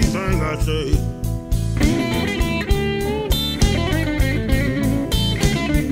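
Electric blues band playing an instrumental passage: a lead electric guitar with bent notes over bass and a steady drum beat.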